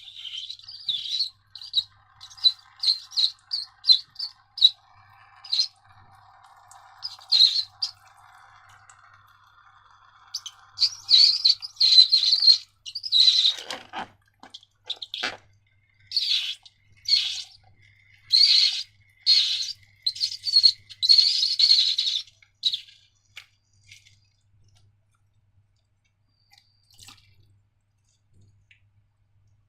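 Rubber balloon squeaking over and over as it is rubbed and squeezed by hand, with short, high squeaks coming in two runs and then stopping near the end.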